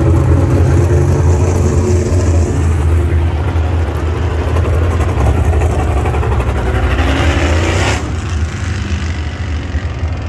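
Winged dirt-track sprint cars' V8 engines running as they circle the oval, pitch rising and falling with the throttle. About eight seconds in the higher, hissier part of the sound cuts off suddenly, leaving a lower engine rumble.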